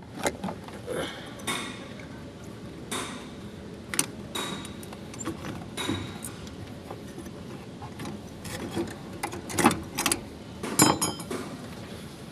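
Irregular clicks, clinks and knocks of hand work opening up a Hyundai Accent's fuel pump, the loudest knocks about ten and eleven seconds in.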